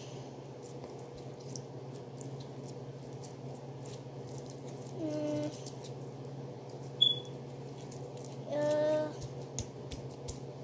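Yellow slime being kneaded and pressed by hand, giving faint sticky clicks and pops over a steady low hum. A sharp click stands out about seven seconds in. A voice hums briefly twice, about five and nine seconds in.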